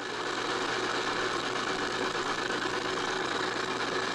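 Steady hiss with a low hum underneath from an HP 8568B spectrum analyzer set up as a shortwave receiver, heard while it is being tuned to 7190 kHz and before any signal is demodulated.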